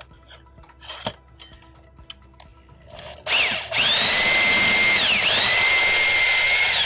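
Corded Hilti drill spinning a Lug Ripper milling bit into a lug nut that spins on its stud. The drill starts about three seconds in with a rising whine, slows briefly once partway through and picks back up, then stops near the end.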